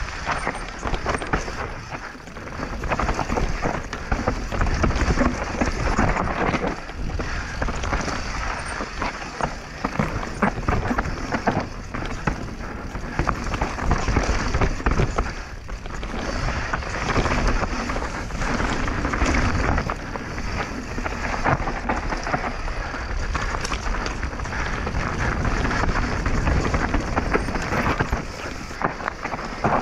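Mountain bike running fast down a dirt and gravel trail: tyre roar and constant rattling of the bike over roots and bumps, with wind rushing over the microphone.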